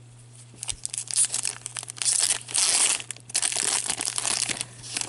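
The foil wrapper of a 2013-14 Upper Deck Artifacts hockey card pack being torn open and crinkled by hand: a dense crackle that starts about a second in and goes on, loudest in the middle.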